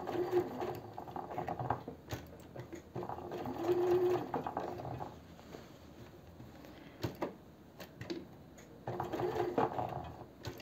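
Domestic electric sewing machine stitching a seam in three short runs, with pauses between them in which a few light clicks are heard.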